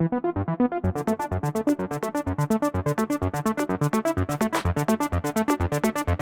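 Background electronic music with a fast, steady synth beat; about a second in, a crisp high percussion layer comes in.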